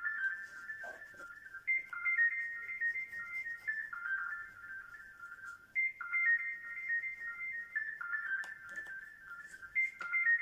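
Background music: a simple, high, ringtone-like melody of single pure notes, with a short phrase repeating about every four seconds.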